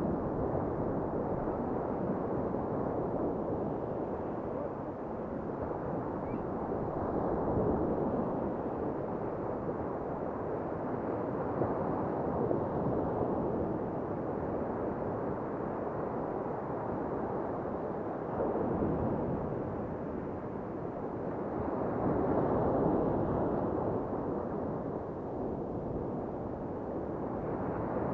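Sea surf washing onto the shore: a steady, muffled rushing that swells louder as each wave breaks, every few seconds.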